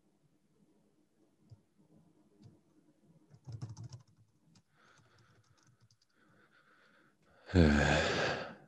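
Computer keyboard typing: scattered key clicks with a quick run of keystrokes about three and a half seconds in. Near the end a man's voice sounds briefly, louder than the typing.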